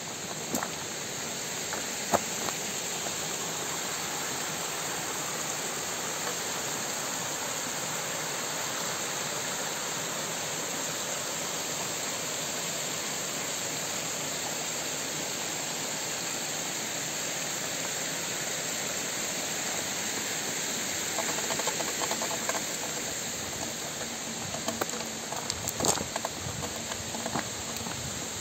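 Waterfall splashing down a rock face: a steady rushing hiss of falling water. A few short sharp knocks stand out over it, one about two seconds in and several near the end.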